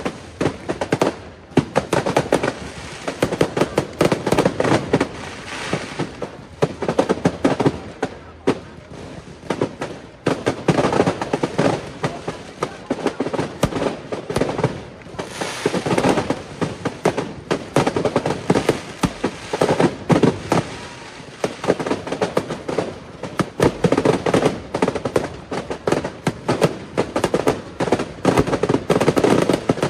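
Fireworks going off in a dense, continuous barrage: many sharp bangs and crackles a second from aerial shells bursting overhead.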